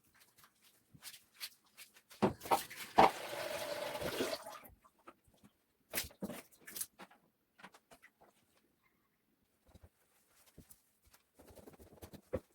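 Household items being handled during kitchen cabinet cleaning: scattered clicks and knocks, with a stretch of rubbing noise lasting about two seconds starting about two seconds in, and a softer one near the end.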